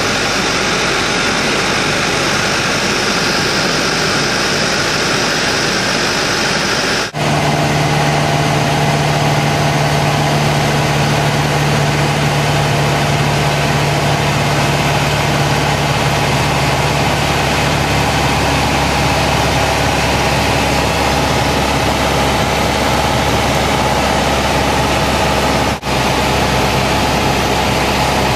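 Airliner cabin noise on descent to land: a loud, steady rush of jet engines and airflow with a low hum. The sound cuts out for an instant about seven seconds in and again near the end; after the first break the low hum is stronger.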